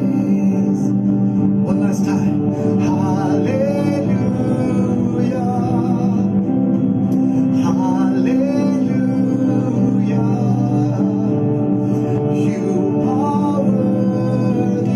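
Slow worship music: a singing voice carrying a gliding melody over sustained instrumental chords.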